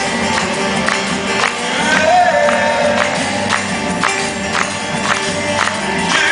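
Music with a steady beat: a percussion stroke about twice a second under sustained melodic lines.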